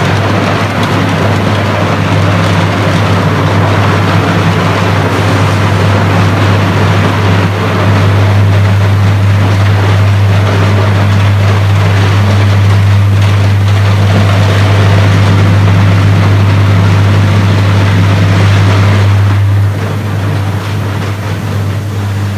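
Electric arc furnace in operation: a loud, steady, deep hum under a dense crackle from the electrode arcs, which eases and turns quieter near the end.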